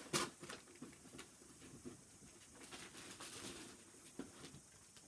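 Faint rustling and light clicks of things being handled and moved about, with one sharper click just after the start and a few softer ones later.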